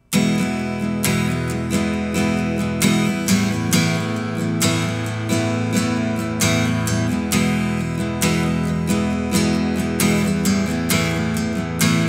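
Seagull Maritime SWS SG steel-string acoustic guitar playing strummed chords in a steady rhythm. It comes in suddenly out of silence right at the start.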